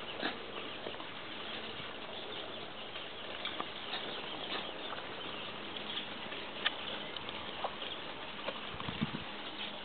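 Two dogs playing on a lawn: scattered short scuffles and clicks over a steady hiss, with a brief low sound about nine seconds in.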